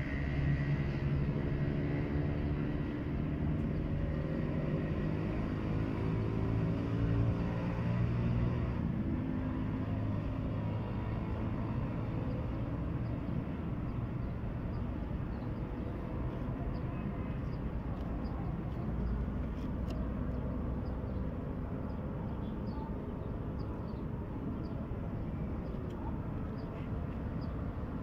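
A motor vehicle engine running for about the first nine seconds, its pitch drifting slightly. It then fades into a steady low outdoor traffic rumble.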